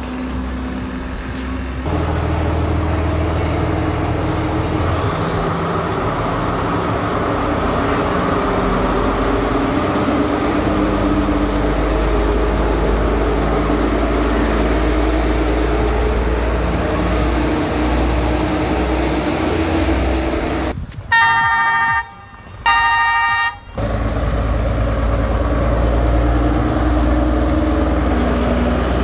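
Chinese-built diesel multiple unit's engine running with a steady drone and a faint whine that rises slowly in pitch. About three quarters of the way through, the train's horn gives two loud blasts, each about a second long, and the engine drone then carries on.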